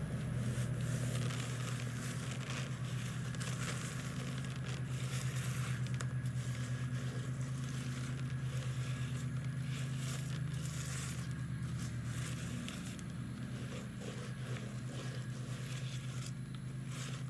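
A hand rubbing seeds loose from a dried sunflower head: dry scratchy crackling and rustling of the seeds and florets. A steady low hum runs underneath.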